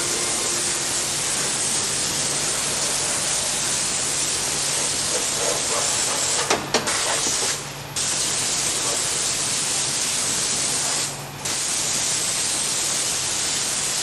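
Compressed-air spray gun hissing steadily as it blasts coating onto a car's underbody. The spray cuts out briefly twice, and there are a couple of sharp clicks about six and a half seconds in.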